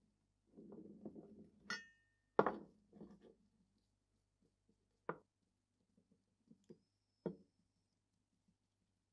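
Steel parts of a DP-27 machine gun handled with gloved hands on a wooden workbench: soft rustling, a short ringing metallic clink near two seconds in, then a knock and a few lighter, spaced-out taps as parts are set down.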